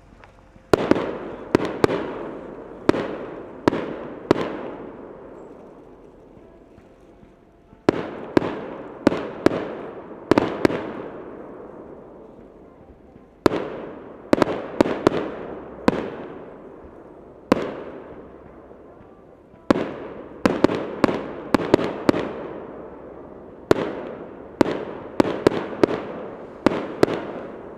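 Firework shells bursting in the air in quick clusters of sharp bangs, a few to half a dozen at a time with short lulls between the clusters. Each bang leaves a rolling echo that dies away over a second or two.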